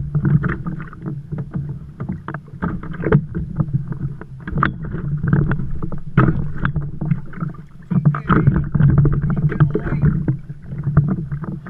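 Water slapping and sloshing against a Hobie kayak's plastic hull as it rocks on the swell, with irregular knocks and splashes.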